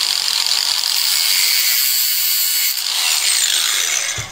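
Ryobi angle grinder running at full speed, its disc cutting through a brass stuffing tube. About three seconds in it is released and spins down with a falling whine.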